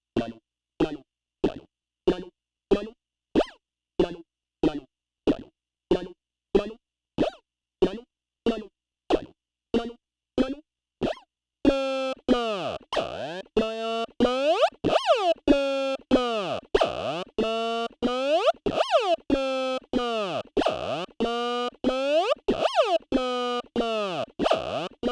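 Analog synthesizer run through a voltage-controlled vowel formant filter, making vowel-like, talking synth tones. For the first half it plays short plucky notes, about two a second. About halfway through it switches to a continuous tone whose vowel formants sweep up and down, pulsing in the same rhythm.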